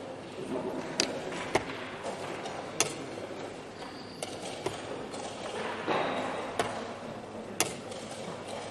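Wooden chess pieces being set down on a wooden board and the chess clock being pressed in a fast blitz game: a series of sharp clicks and taps, about seven in all, spaced irregularly over a steady room hum.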